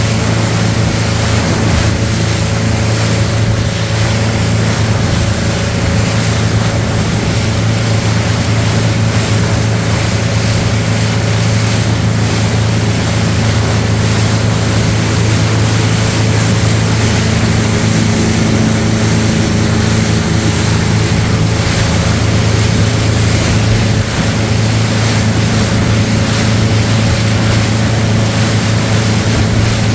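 Motorboat engine running steadily with a low, even drone while the boat is under way, with water rushing and splashing along the hull.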